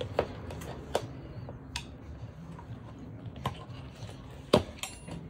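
About five sharp, unevenly spaced clicks and taps of a flathead screwdriver working the bead of a solid rubber tire into an electric scooter wheel rim, the loudest near the end.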